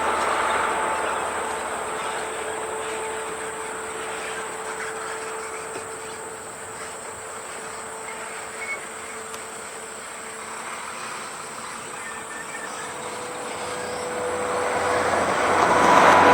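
Road traffic: a vehicle's steady humming tone with tyre noise fades over the first seconds, then another vehicle approaches and grows loud near the end, its tone starting to drop as it passes.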